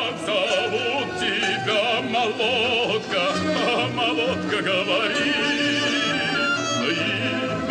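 Music without words: a melody with wide vibrato over a steady backing accompaniment.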